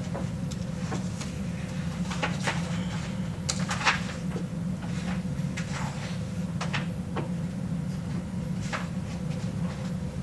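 Papers being handled and pages turned, making scattered small rustles, clicks and knocks over a steady low room hum.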